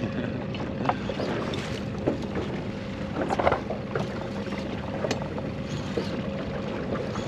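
Small boat's outboard motor running slowly at a knot or two with a steady hum, over the rush of wind and water, with a few short knocks.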